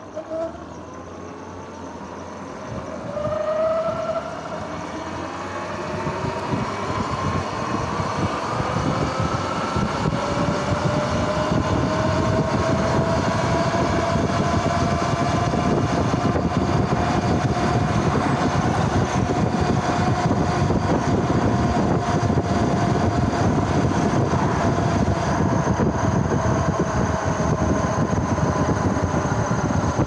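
Sur-Ron X electric dirt bike's drivetrain whining as it accelerates from a stop. The whine rises in pitch over the first ten seconds or so and then holds steady at cruising speed, while wind and tyre noise build up beneath it.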